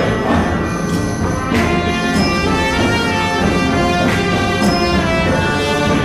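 Orchestral background music with sustained chords and a percussion hit every second or two.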